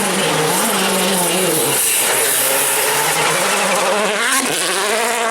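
Rally car engine revving hard, its pitch rising and dropping several times as it changes gear, over a steady high hiss.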